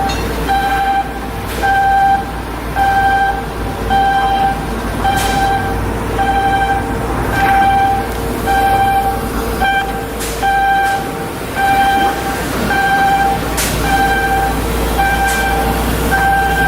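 Electronic warning beeper sounding a steady, evenly spaced beep, about two a second, over steady machine noise, with a few sharp metallic knocks in between.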